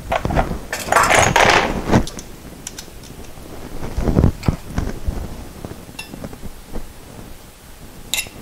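Small metal tools clinking and rattling in the hands: locking pliers and small sheet-metal panel clamps being handled, with a longer clattering rattle about a second in and a few knocks and clicks after.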